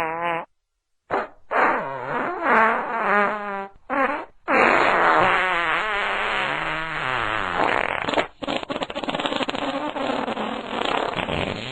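A string of farts: a few short ones in the first four seconds, then a long one from about four and a half seconds in that wavers up and down in pitch, breaking near the end into a fast sputtering rattle.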